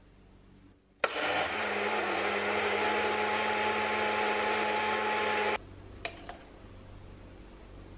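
Personal blender blending strawberries, banana and vanilla milk into a smoothie: the motor starts suddenly about a second in, runs loud and steady for about four and a half seconds, and cuts off abruptly. Two light clicks follow.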